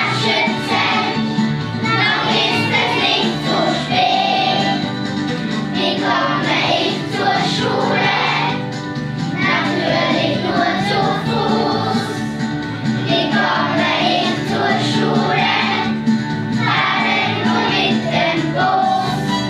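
A choir of young children singing together in unison.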